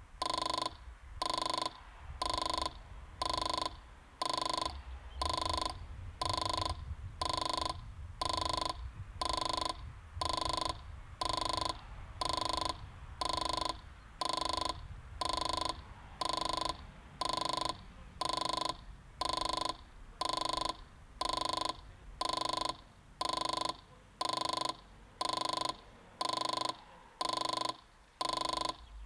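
Level crossing warning bell ringing steadily about once a second, each stroke a short ringing tone, while the barriers are down: the warning that a train is approaching.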